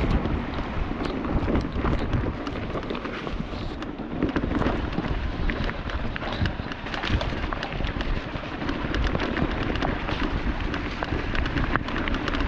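Mountain bike rattling over a rough, rocky trail: a dense, irregular run of knocks and clicks from tyres striking rocks and the bike's frame and chain clattering, over a steady low rumble.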